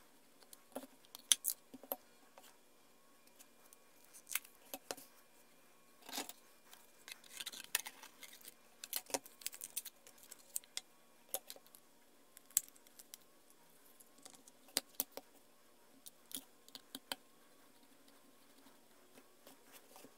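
Handling sounds of a Fluke 117 multimeter having its 9-volt battery replaced: scattered sharp plastic clicks and knocks from the rubber holster, case and battery door. About seven to eight seconds in there is a spell of crinkling as the new battery's packaging is opened.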